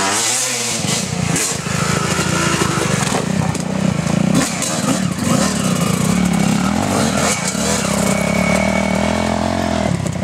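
Dirt bike engine revving hard on a hill climb, its pitch rising and falling as the throttle is worked, with a higher, steadier note near the end.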